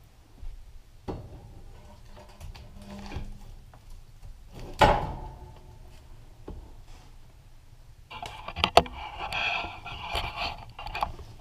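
Split firewood being loaded into a steel wood stove's firebox: a few light knocks as logs are set in, then one loud clunk with a brief metallic ring about five seconds in. Near the end come a few seconds of rustling and sharp clicks.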